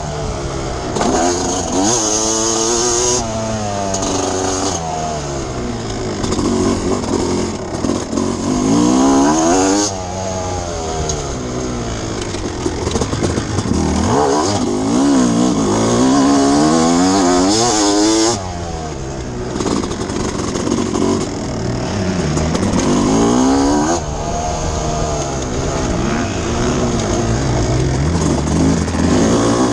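Suzuki RM250 two-stroke single-cylinder motocross engine, heard from a camera on the bike, revving up and down over and over as the throttle is opened and closed. The throttle is chopped sharply a few times, about 10, 18 and 24 seconds in.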